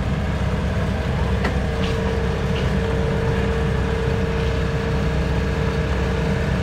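Kubota combine harvester's diesel engine running steadily as the machine creeps forward on its rubber tracks, with a steady whine joining in about two seconds in.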